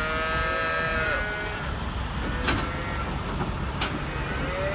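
Cattle mooing inside an aluminium livestock trailer: one long call that bends down and stops about a second in, and another starting near the end, over a steady low rumble from the idling semi truck. Two sharp knocks in between.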